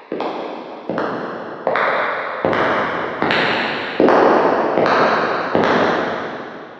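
Footsteps walking at a steady pace, about eight steps, each with a long echoing tail. The steps grow louder over the first half, and the last one dies away near the end.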